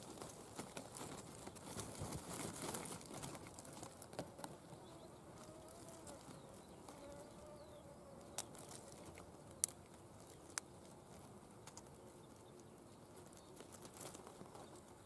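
Faint rustling and crinkling for the first few seconds, then a quiet background broken by a few sharp clicks.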